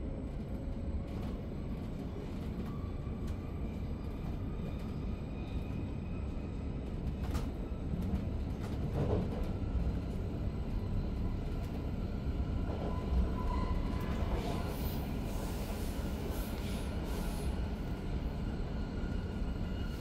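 Steady rumble of a Re 450-hauled DPZ double-deck S-Bahn train running at speed, heard from inside a passenger coach, with a faint steady whine and a few short clicks and squeaks from the wheels and running gear.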